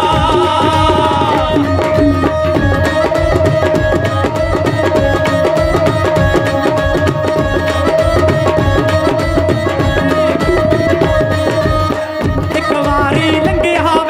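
Live Punjabi folk music in an instrumental break: tabla playing a fast, even rhythm under a violin melody and a steady held note. A singing voice trails off in the first second or so and comes back near the end.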